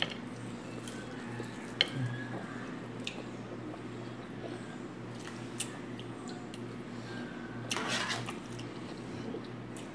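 Close-up chewing and wet mouth sounds of someone eating shrimp fried rice. A few sharp clicks of a metal fork against a plate are heard, then a short scrape of the fork across a plate a little before the end, over a low steady hum.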